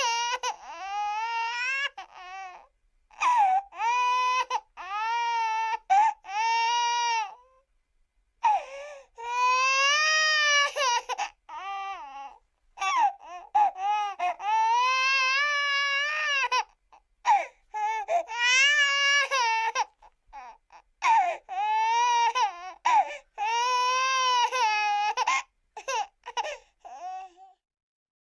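Cartoon crying sound effect: high-pitched childlike wailing sobs in repeated bouts, wavering in pitch, with short dead-silent gaps between them, stopping shortly before the end.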